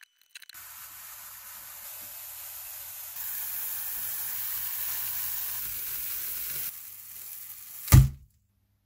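Aerosol spray can spraying in a steady hiss that gets louder about three seconds in and stops near seven seconds, followed by a single loud knock.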